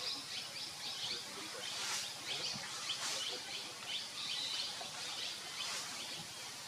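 Outdoor ambience full of many birds chirping in quick, overlapping short calls, over a steady background hiss.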